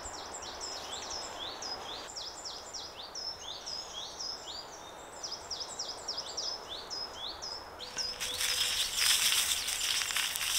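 Small birds chirping, many short high notes overlapping in quick succession. About eight seconds in, a louder hissing rustle starts and runs on over the calls.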